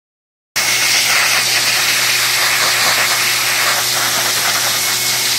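Dog grooming blow dryer blowing a steady rush of air over a wet dog's coat, with a faint steady motor hum under it; it cuts in suddenly about half a second in.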